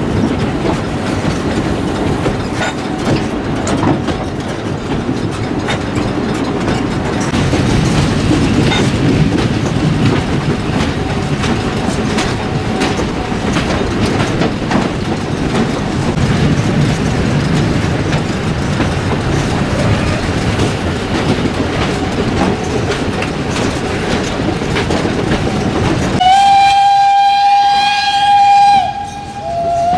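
Narrow-gauge steam train (kkStB U 298.102 and its coaches on 760 mm track) running, heard from a carriage window: a steady rumble and clatter of wheels on the rails. Near the end the locomotive's steam whistle sounds in one long blast, then again with a wavering pitch.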